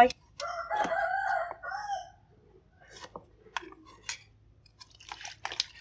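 A rooster crowing once, a drawn-out call of about a second and a half, followed by a few scattered light clicks and taps of a cleaver and metal tongs on a chopping board.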